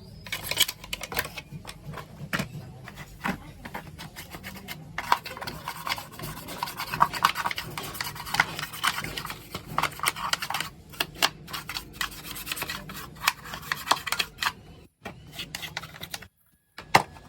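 Irregular rubbing and scraping strokes with many scattered clicks, from hand work on a car headlight. The sound breaks off briefly twice near the end.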